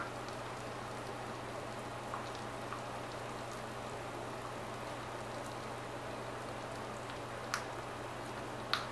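Pop Rocks candy crackling in an open mouth: a faint, steady, rain-like patter of tiny pops, with a couple of sharper clicks near the end, over a low steady hum.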